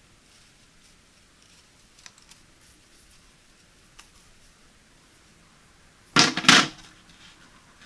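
Plastic Boon Grass drying rack set down onto its plastic base tray: a loud double clatter a little after six seconds in, after a few faint taps from handling the flexible grass blades.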